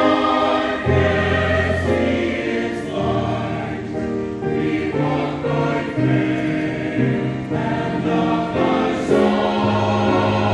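Church choir singing a hymn in held chords, with accompaniment underneath.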